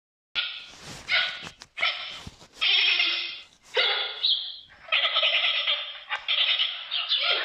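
Giant panda bleating: a run of about eight calls, each up to a second long, with short breaks between them.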